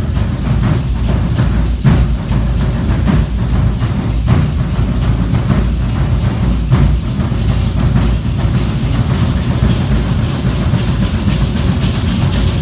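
Matachines dance percussion: a drum beating a steady rhythm, with hand rattles shaking more loudly toward the end.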